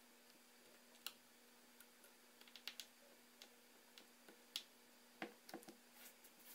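Faint, scattered light clicks and taps of a small screwdriver and tiny screws being handled on an iPhone 4S during reassembly, the sharpest about halfway through, over a faint steady hum.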